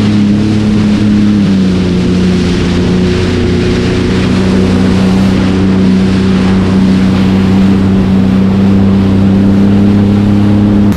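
Jet ski engine running steadily at cruising speed, its note dropping a little about a second and a half in, with water rushing beneath the hull.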